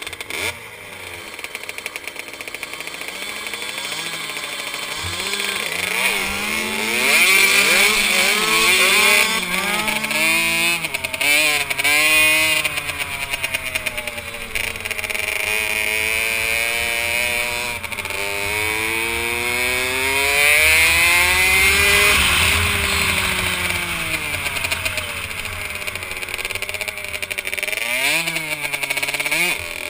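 Kawasaki KX65 two-stroke single-cylinder engine heard close up on board, revving hard as it pulls away. It climbs and drops in pitch again and again, with quick rises for the first several seconds, then long rises and falls as the throttle is eased for the corners and opened again on the straights.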